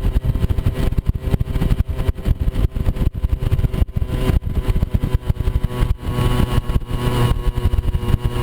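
Moped scooter's small engine running steadily while riding over rough ground, with frequent irregular knocks and wind buffeting on the microphone.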